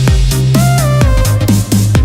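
Electronic dance music with a heavy bass line, a steady drum beat and gliding synth notes.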